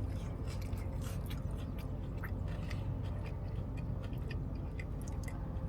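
Close-up chewing of a bite of fried boneless chicken wing coated in honey butter sauce, with many small crunchy crackles, over a steady low hum.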